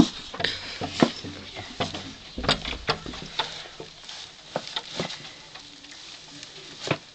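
Dry straw rustling and crackling as it is scooped up by hand and pressed into a container, with irregular sharp crackles and knocks.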